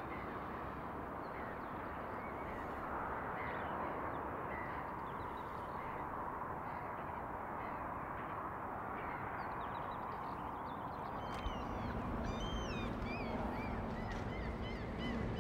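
Steady, even hum of a distant city at dusk, with birds calling over it and a flurry of short high chirps near the end.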